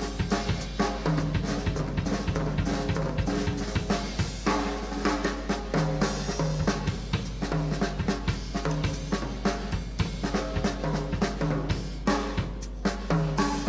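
Live instrumental band playing, with a busy drum kit (kick, snare and rimshots) to the fore and held bass notes and other pitched instruments underneath.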